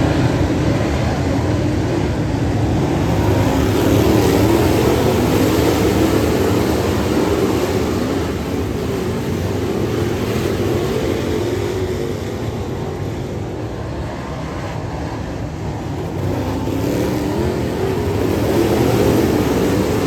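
Dirt late model race car engines running at racing speed, their pitch rising and falling over and over.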